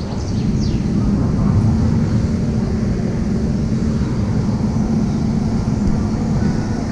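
Sunkid Heege Butterfly ride car running along its metal rail, a steady low rumble with a hum.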